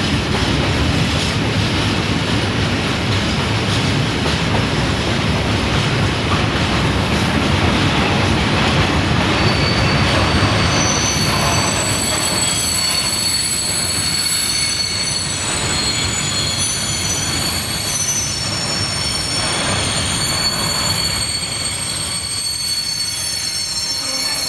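Freight train of tank wagons rolling past, with a steady rumble of wheels on the rails. From about halfway through, a high-pitched wheel squeal of several steady tones joins in.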